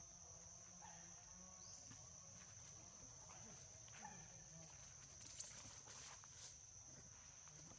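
Faint, steady, high-pitched insect drone, with light rustling of dry leaf litter and two brief rising chirps, about two and five and a half seconds in.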